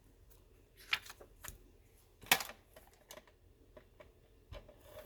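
Light clicks and taps of cardstock pieces being handled and set down on a work surface, with the sharpest tap about two seconds in.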